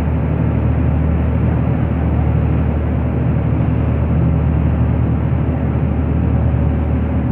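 Steady drone of the RV Yellowfin's engines with the boat underway, under an even rushing hiss of water and wind.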